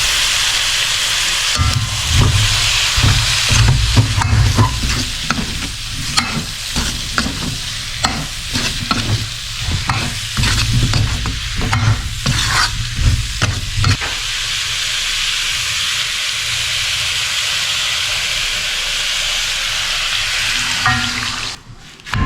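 Food frying in hot oil in a pan, with a steady sizzle. For about the first two thirds it is stirred with a spatula that scrapes and knocks against the pan, and then it sizzles undisturbed.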